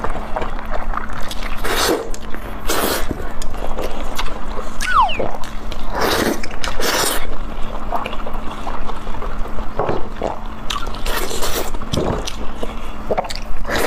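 Eating sounds: chewing and lip smacks in irregular bursts, with a short sucking sound about five seconds in.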